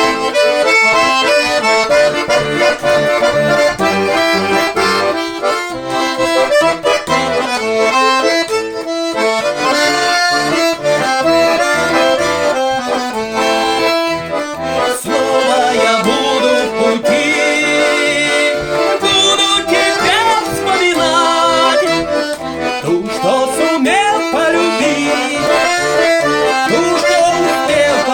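Garmon, a Russian button accordion, playing an instrumental passage: a melody over steady chords, with no singing.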